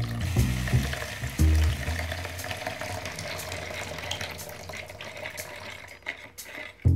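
Liquid being stirred and scooped with a plastic cup in a plastic bowl, a steady wet hiss. Backing music with a low beat plays under its first couple of seconds, then fades.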